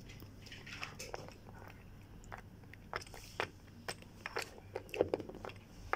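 Scattered soft clicks and crunchy, chewing-like noises at irregular intervals, acting out a toy figure eating from a miniature plastic ramen bowl.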